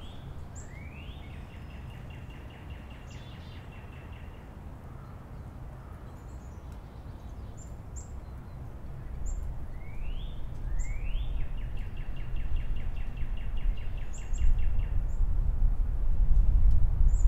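Wild songbirds calling: thin, high chirps scattered throughout, and twice a rising note that runs into a steady trill. A low rumble builds in the second half and is loudest near the end.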